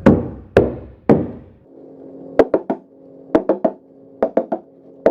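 Hammer tacking roofing underlayment down to a wooden roof deck: three heavy blows that ring on, then quick sets of about four light taps, repeated about once a second.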